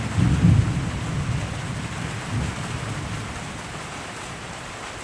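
Thunder rumbling, loudest in the first second and then dying away, over steady heavy rain.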